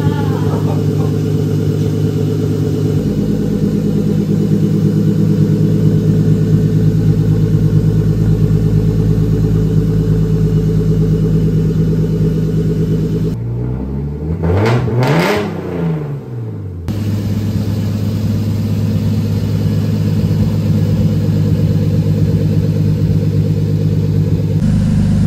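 BMW E30's turbocharged M52 straight-six idling steadily through a new 3-inch stainless turbo-back exhaust. A little past halfway, for about three seconds, the steady idle gives way to tones sliding up and down in pitch.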